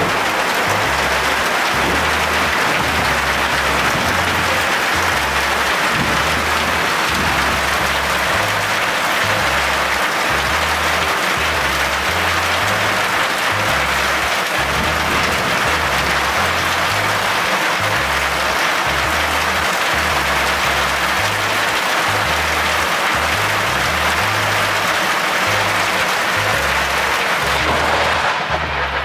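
Heavy rain pouring down steadily in a cloudburst, a dense hiss, with background music's low bass line pulsing beneath it.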